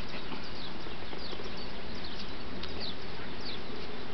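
Small birds chirping: a scatter of short, high, downward-sliding chirps over a steady background hiss.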